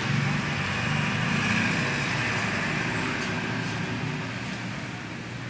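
Steady background noise: a low hum with a hiss over it that swells in the first second or two and then slowly fades, like road traffic passing.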